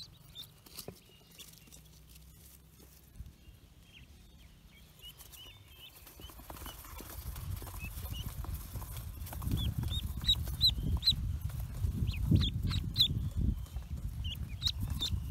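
Pekin ducklings peeping in short high chirps, sparse at first and coming quicker and louder in the second half, over a low rustling rumble of the ducklings being handled close to the microphone.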